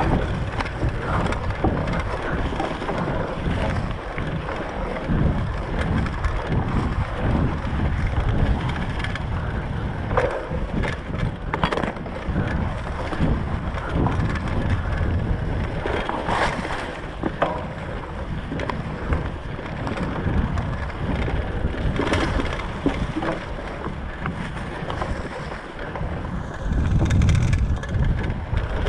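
Trek Marlin 6 hardtail mountain bike rolling fast over leaf-covered dirt singletrack: steady tyre rumble and wind buffeting the GoPro's microphone, with the bike knocking and rattling over bumps now and then. The rumble grows louder near the end.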